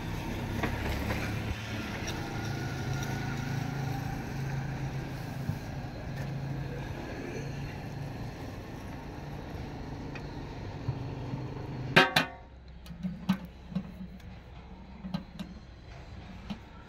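Street traffic noise, a vehicle engine running steadily with car horns sounding, cut off by a sharp knock about twelve seconds in. After that it is quieter, with a few light clicks and clinks.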